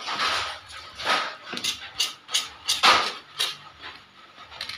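Knife cutting through a thick martabak and knocking and scraping on a wooden cutting board: a string of short strokes, the loudest about three seconds in.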